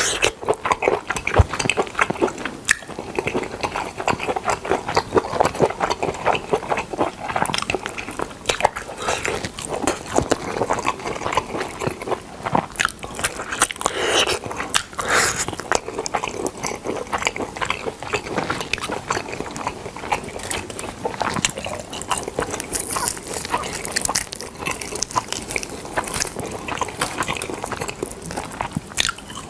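Close-miked mouth sounds of someone chewing and biting smoked chicken: a dense, steady run of small clicks and smacks without a pause.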